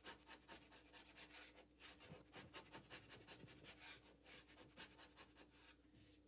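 Faint, quick, repeated rasping strokes of a hand scraper shaving dried, cracked joint compound off a drywall patch, knocking down the high spots so the patch sits flush with the wall.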